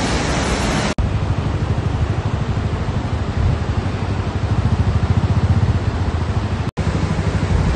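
Low, fluttering road and engine rumble of a moving vehicle crossing a bridge. It is preceded by about a second of the steady rush of a waterfall before an abrupt cut.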